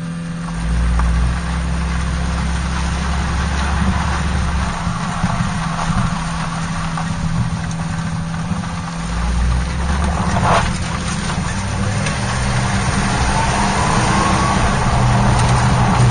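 Old Mercury car's engine and exhaust running steadily as it drives, mixed with road and tyre noise, heard from under the car next to the exhaust pipe and rear axle. A faint rising tone comes in near the end, as the sound grows a little louder.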